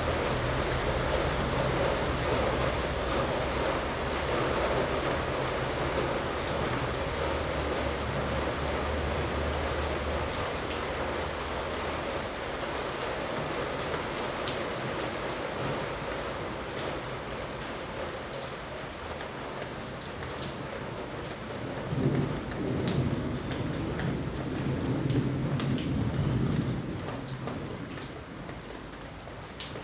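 Steady rain falling, with drops ticking close by, and low thunder rumbling: strongest over the first third, then swelling again about two-thirds of the way through.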